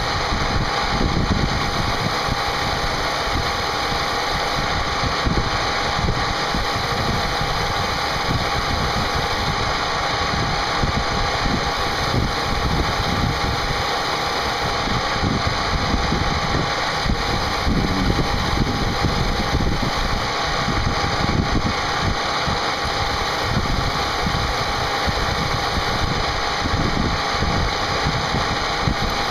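CNC machine running a milling job: a steady spindle whine over an even, rough cutting noise, with no pauses or changes.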